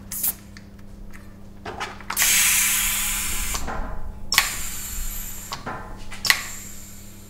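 Bicycle pump inflating a tubular road tyre to riding pressure: a few clicks as the pump head goes onto the valve, then two long hissing strokes of air about two seconds apart, and a sharp click near the end.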